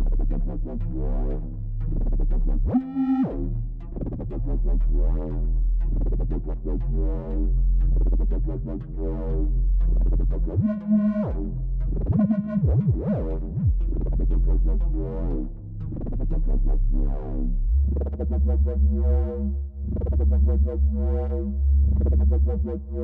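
Electronic music with synthesizer: repeated keyboard notes about twice a second over a sustained deep bass, which shifts up to a new note about three-quarters of the way through.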